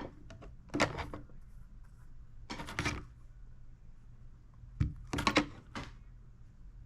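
Small objects being handled: a few short bursts of clicking and rustling, about a second in, around three seconds in and again near six seconds, over a faint steady hum.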